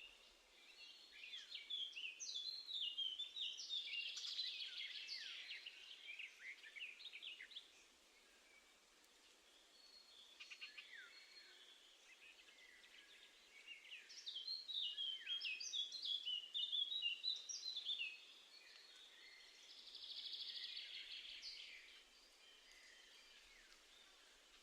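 Garden songbirds singing outdoors: two long runs of quick, high, varied notes, one from about a second in to about eight seconds and another from about fourteen to eighteen seconds, with a shorter, hazier passage a little after twenty seconds.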